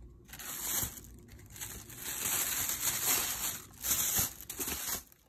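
Soft rustling, crinkling noise with a few faint knocks near the end.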